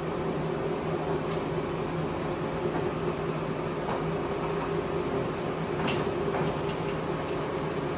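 Clausing Colchester 17x40 engine lathe running, a steady motor and spindle hum, with a few faint clicks.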